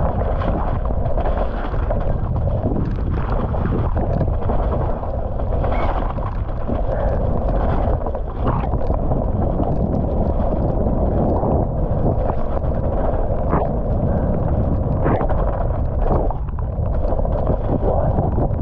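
Downhill mountain bike ridden fast down a wet, muddy track: a steady rush of wind and rolling noise from the tyres in the mud and the bike over rough ground, with occasional sharp knocks.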